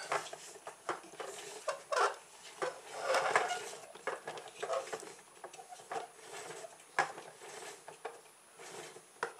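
Plastic toolbox car with CD wheels handled while its rubber band motor is wound onto the back axle: irregular plastic clicks, knocks and rattles.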